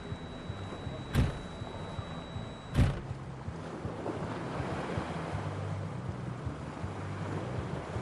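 Two sharp thumps about a second and a half apart, with a faint, thin, high steady tone that stops at the second thump. From about four seconds in, a steady rushing wash of noise swells up.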